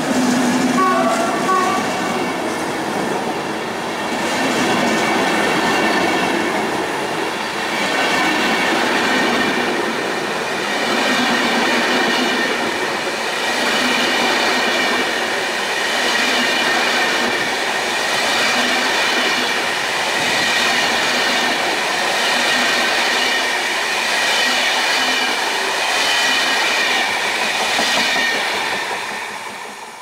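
Passenger coaches of an electric-hauled intercity express rolling past as the train pulls away: a steady rumble of wheels on rail with a high, steady ringing over it. It swells and eases as each coach goes by, then dies away near the end as the last coach clears.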